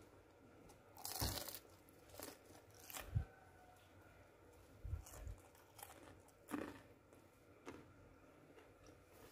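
Crispy corn fritters (perkedel jagung) crunching: a handful of faint, short crunches scattered over several seconds.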